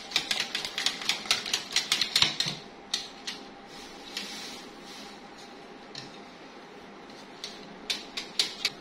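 A hand beater whisking yogurt and gram-flour batter in a bowl to beat out the lumps, clicking rapidly against the bowl at about five strokes a second. The clicks thin out to a few scattered taps for several seconds, then pick up again in a short quick run near the end.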